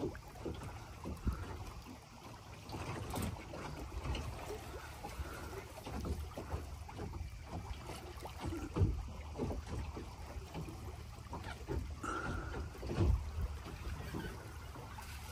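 Wind buffeting the microphone and water slapping against a small boat's hull, with scattered irregular knocks.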